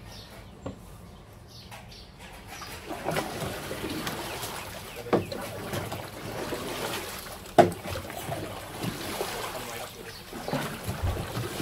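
Canoe paddle strokes churning and splashing the water of a paddling tank, starting a couple of seconds in, with two sharp knocks, the louder one a little past the middle.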